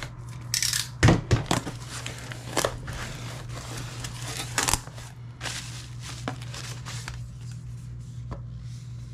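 Packaging being handled: a clear plastic sleeve crinkling and rustling, then cardboard box flaps being opened, with irregular rustles and several sharp taps and scrapes over a steady low hum.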